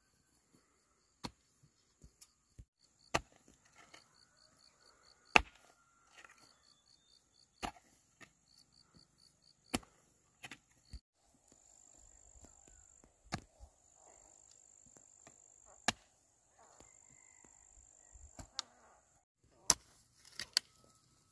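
Sharp chopping strikes at uneven intervals, roughly one every one to two seconds, the loudest about five seconds in. Insects chirp behind them in a rapid repeating pulse, over a steady high insect tone.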